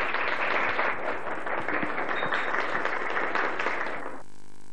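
A small group applauding, a dense patter of many hands clapping. It cuts off suddenly about four seconds in, leaving only a low steady hum.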